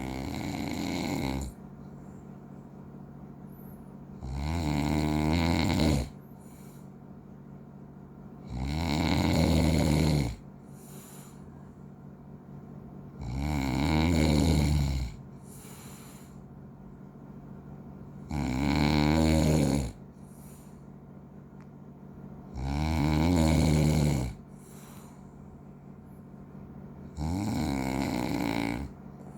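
Regular snoring: seven long snores at an even pace, about one every four and a half seconds, with quiet breathing gaps between them.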